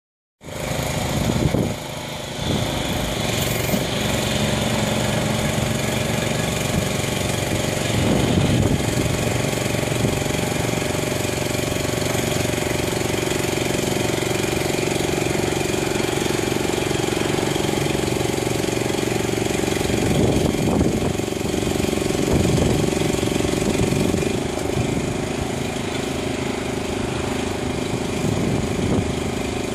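Small engine on an Aquamarine SC-3730 shore conveyor running steadily as the conveyor is raised to a steep angle, swelling briefly a few times.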